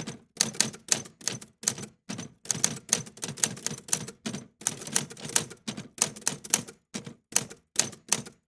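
Typing keystrokes tapping in an irregular run, about two to four strokes a second with short pauses between groups.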